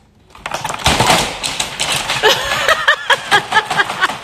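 Two dogs' claws clattering and scraping on a wooden floor as they scramble, with a few short whines about two seconds in.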